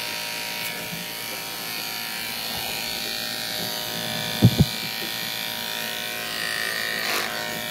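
Aesculap Durati cordless clipper, fitted with a wide blade, buzzing steadily at 3500 strokes a minute as it pre-shaves through a dirty, matted Leonberger coat. Two short thumps about halfway through.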